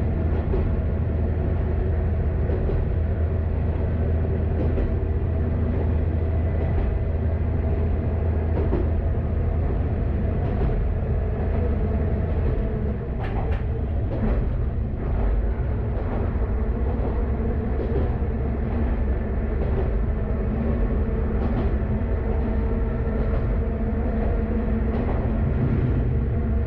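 KiHa 532 diesel railcar running along the line, its diesel engine droning steadily with wheels clicking over rail joints about every two seconds. About halfway the engine's low hum eases, and a short cluster of knocks follows.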